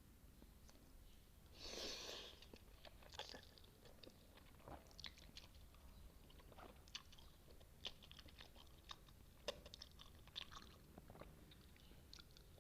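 Close-miked chewing of spicy noodles and kimchi: irregular wet clicks and crisp crunches, with one louder, longer noisy burst about two seconds in.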